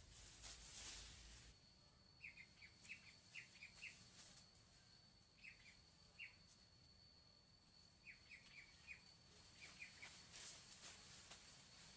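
Faint chirping of small birds: five short runs of quick high chirps, three to five to a run, over a thin steady high whine. A brief rustling noise comes before the first run.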